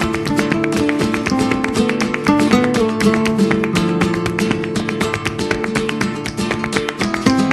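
Flamenco-style acoustic guitar music: fast plucked and strummed notes.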